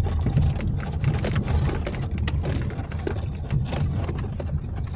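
Car cabin noise while driving over a badly broken, potholed road: a steady low rumble of engine and tyres with frequent short knocks and rattles as the car jolts over the holes.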